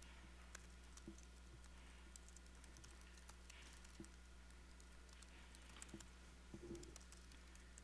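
Faint, irregular key clicks of someone typing a command on a computer keyboard, over a low steady hum.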